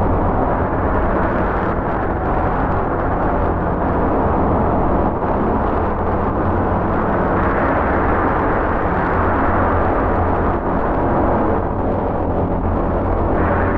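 Designed sandworm sound effect: a loud, deep, continuous rumble with a grinding, churning noise over it, the upper part fading and swelling a little without any separate hits.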